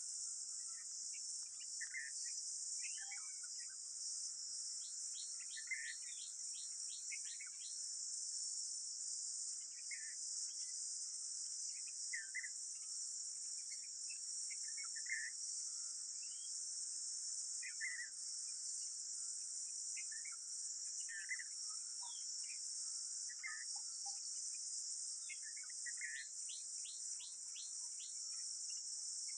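Steady high-pitched drone of crickets or similar insects, with short bird calls every second or two and, twice, a quick run of rapid chirps.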